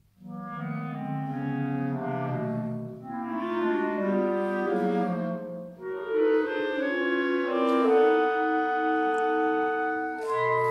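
A clarinet ensemble playing a slow passage in several parts, sustained notes layered into chords. It enters after a short pause, the phrases breathe briefly twice, and it settles on a long held chord near the end.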